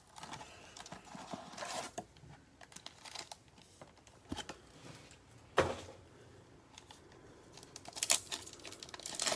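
Cardboard blaster box and a stack of foil trading-card packs being handled, with scattered rustles and a sharp tap about halfway through. Near the end a foil card pack crinkles as it is torn open.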